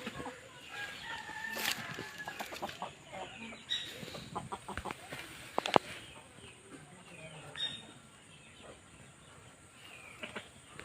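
Chickens clucking with short scattered calls. Several sharp clicks are mixed in, the loudest just before six seconds in.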